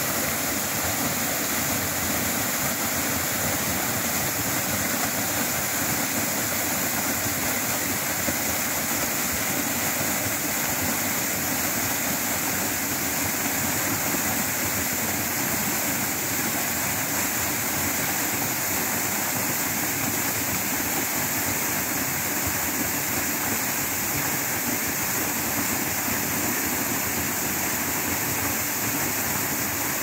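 Waterfall: water pouring down a rock face and splashing onto the rocks below, a steady rush that does not change.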